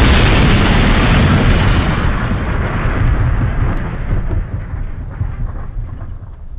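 The long rumbling tail of a cinematic boom sound effect, fading out steadily after a heavy hit.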